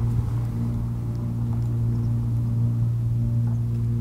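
Overtone chant music: a low, steady sung drone with several overtones held above it, in the style of Mongolian throat singing (khöömii).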